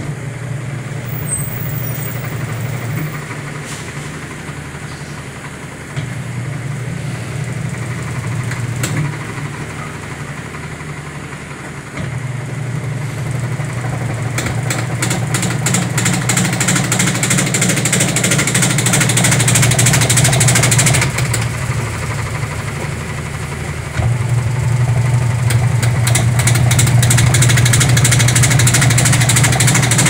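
Sharp automatic top-load washing machine spinning empty on spin-dry. The drum's low hum is joined by a fast clatter of the wobbly tub knocking against the cabinet side, which gets louder in steps from about halfway in. This banging is the sign of a defective tub assembly.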